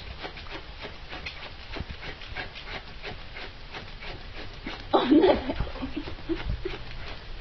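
A corgi treading on a person's back over their clothing: a steady scratchy rustle of paws on fabric. About five seconds in there is a short, louder dog vocal sound.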